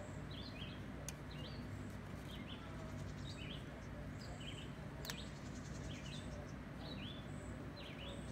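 Small birds chirping over and over, short high calls about once a second, over a steady low hum. Two sharp clicks cut through, about one second and five seconds in.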